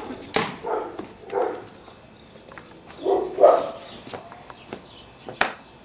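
A dog barking several times with gaps between the barks, the loudest a few seconds in, and a sharp click near the end.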